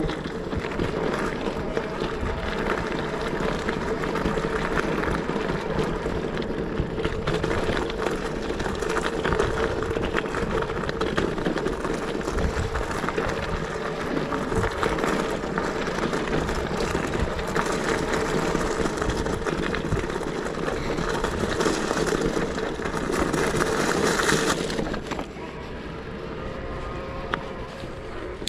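Steady wind and road noise from riding, picked up by a bike-mounted action camera, with a faint steady hum running through it. It turns noticeably quieter near the end.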